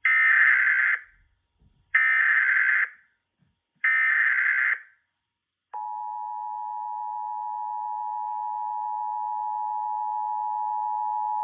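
Emergency Alert System tones: three one-second bursts of SAME header data, each a harsh buzzy warble, about two seconds apart. Then, about halfway through, the steady two-tone EAS attention signal starts and holds, slowly getting louder.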